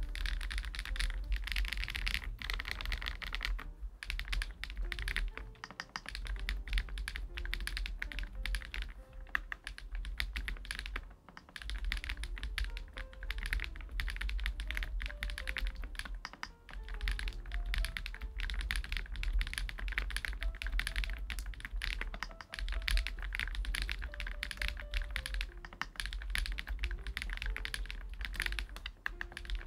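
Fast continuous typing on a GLITTER65 R2 gasket-mounted mechanical keyboard: a dense run of keystroke clacks with a few short pauses. Soft background music plays under it.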